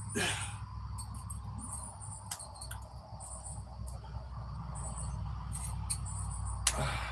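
Insects, cricket-like, chirping in short high-pitched bursts over a steady low hum, with scattered clicks and a brief rustle near the start and near the end.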